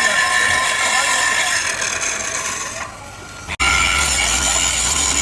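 Loud, steady clattering mechanical noise from metalwork, which thins out about three seconds in and then cuts back in abruptly.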